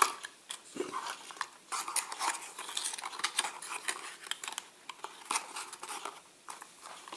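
Diecast model car slid into its thin cardboard Corgi Toys box and the end flap folded and tucked shut by hand: a run of irregular light scrapes, rustles and clicks of card and metal against a hard stone tabletop.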